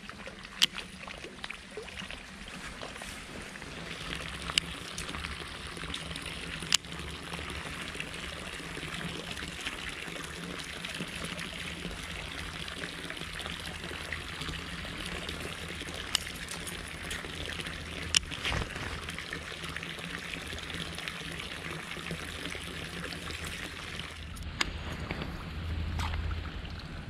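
Steady trickling, splashing water that sets in about four seconds in and falls away near the end, with a few sharp clicks scattered through it.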